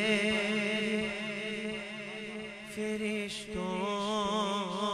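A male naat reciter singing an Urdu naat in long, wavering melismatic notes over a steady low drone. About three and a half seconds in, a new phrase starts on a higher note.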